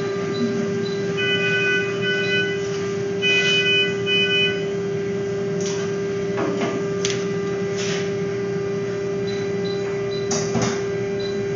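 Steady electrical hum with a patient-monitor alarm sounding as two pairs of bright, multi-tone beeps in the first few seconds. Faint short high beeps come now and then, along with a few brief rustles of towel and handling.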